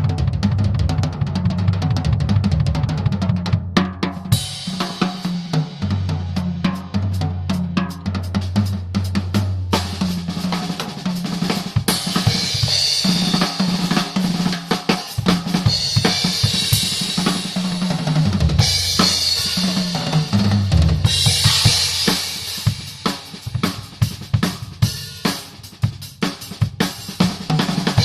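Tama Starclassic Walnut/Birch drum kit played in a steady groove of kick drum, snare and cymbals, with stretches of cymbal wash and sparser hits near the end. Low held tones that step in pitch run underneath.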